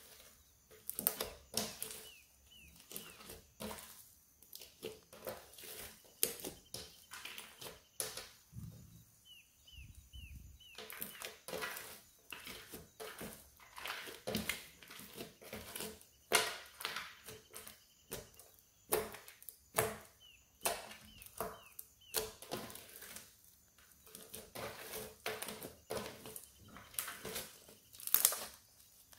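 Hands squeezing and kneading sticky glitter slime, making a stream of irregular wet clicks and pops.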